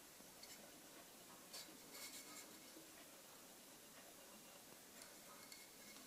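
Near silence with faint rustling and light scratching as hands handle a wooden holder carrying a quartz crystal, a few soft touches about half a second, a second and a half, and two seconds in.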